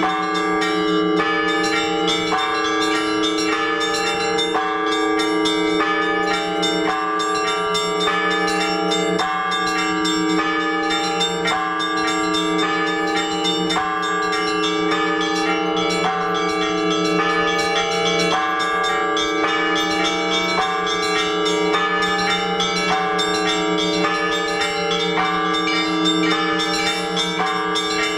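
Orthodox church bells rung by hand in a peal, calling the faithful to the liturgy. Smaller bells are struck in a quick, steady rhythm over the sustained ringing of larger bells.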